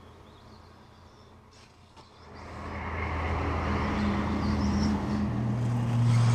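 A motor running with a steady low hum, starting faint about two seconds in and growing much louder.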